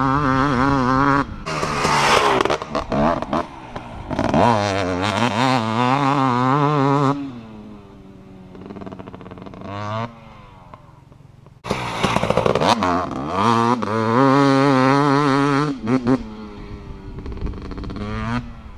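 2018 KTM 250SX single-cylinder two-stroke dirt bike with an FMF Powercore 2 silencer, revving hard and backing off again and again as it is ridden. It goes quieter for a few seconds about halfway through, then revs loudly again.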